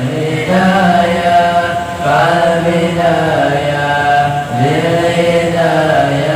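Two young men's voices singing an Islamic shalawat together into handheld microphones, with no instruments, in long drawn-out notes that slide from one pitch to the next.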